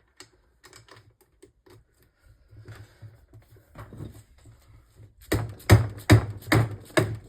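Light scattered clicks of tools on metal, then about six loud knocks in quick succession near the end, struck against a dirt bike engine during teardown.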